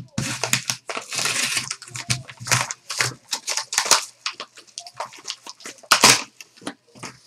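Yellow padded bubble mailer being crinkled and pulled open by hand: a run of irregular crackles and rustles, with the loudest crackle about six seconds in.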